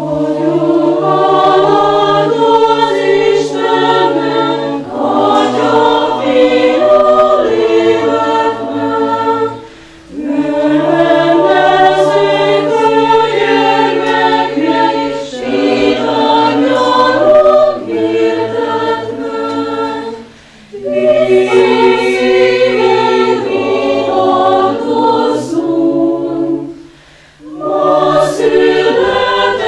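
Choir singing a cappella in several-part harmony, with the low voices holding a sustained note beneath the moving upper parts. It sings in phrases, with short breaths between them about every seven to ten seconds.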